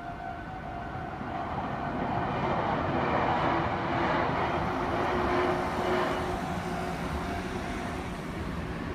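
A Meitetsu electric train passes close by: its running noise swells over a couple of seconds and eases off toward the end. At the start, the two-tone electronic warning of a level crossing sounds, then fades under the train.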